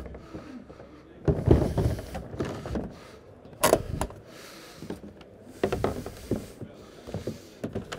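Plastic hull sections of a NATSEQ modular kayak being handled and fitted together: a few dull knocks and one sharper click about three and a half seconds in as the joint is pushed home and locked.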